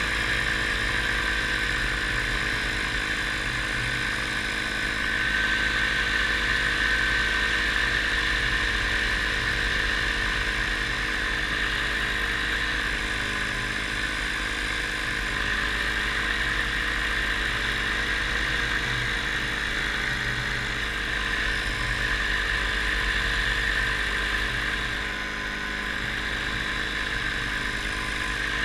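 Paramotor engine and propeller running steadily in flight, heard close up from the pilot's harness: a constant drone with a high, steady tone over it.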